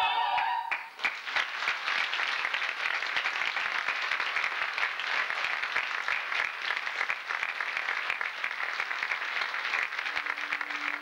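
A final sung chord from soloists and chorus breaks off under a second in, and a theatre audience's applause takes over, many hands clapping at once and carrying on steadily.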